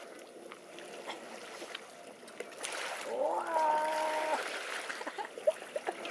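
Faint splashing water, with a person's drawn-out call rising and then holding for about a second, some three seconds in.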